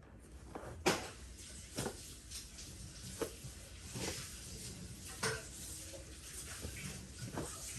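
Soft thumps and clothing rustle from a person doing full prostration bows, body coming down to the floor and rising again. About half a dozen irregular knocks, the loudest about a second in.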